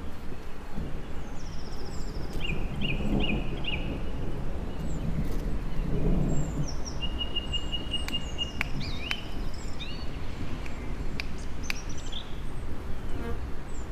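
Wild songbirds chirping and calling, with a quick run of repeated notes about three seconds in and a fast trill about halfway through, over a steady low rumble that swells twice.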